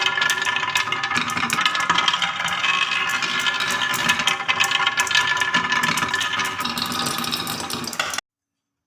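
Many marbles rolling and clattering down a marble run: a dense stream of small clicks and knocks over a steady rolling ring, cutting off suddenly about eight seconds in.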